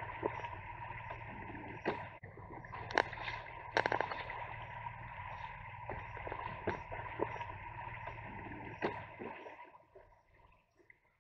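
Shallow river water gurgling and splashing around a motorcycle's camera at water level in a ford, with several sharp knocks and clicks. Near the end it drops almost to silence.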